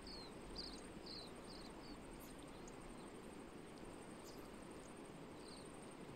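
Faint steady rush of a shallow river running over stones, under a continuous high insect trill. A quick series of short, falling high chirps sounds in the first two seconds and once more near the end.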